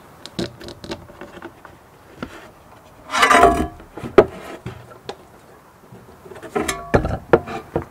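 Small window-pivot hardware (a plastic swivel, spring and rubber and metal washers) being handled and fitted to a sheet of car window glass. Light clicks and taps run throughout, with a louder rustling scrape about three seconds in, a sharp click a second later and another cluster of clicks near the end.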